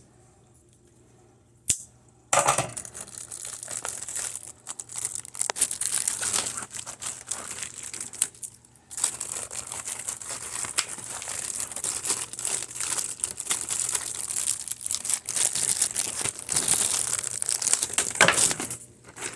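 Plastic packaging of new RAM sticks crinkling and crackling as it is handled. It starts about two seconds in after a single click, and breaks off briefly near the middle.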